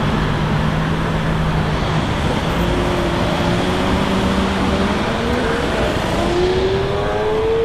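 Lamborghini Aventador SV's V12 engine running through dense street traffic noise, its pitch rising steadily as it accelerates over the last couple of seconds.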